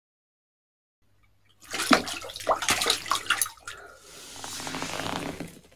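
A large hooked carp thrashing in a small basin of water: a flurry of sharp splashes and slaps starting about a second and a half in, easing into a steadier rushing splash in the second half.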